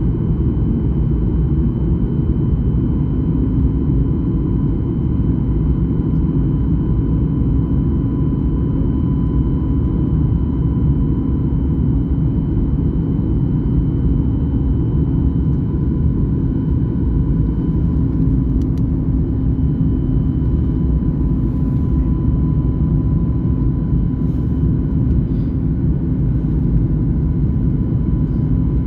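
Airliner cabin noise: a steady, loud low rumble of the engines and airflow heard from inside the passenger cabin, with a faint steady whine.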